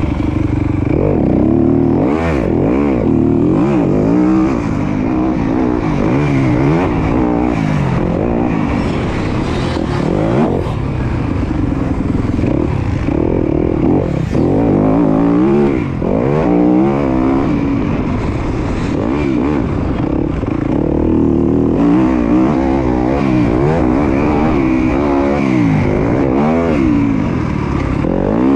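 Motocross bike engine being ridden hard, its pitch climbing under throttle and dropping back every second or two as the rider accelerates, shifts and rolls off. A few short clatters come through over the engine.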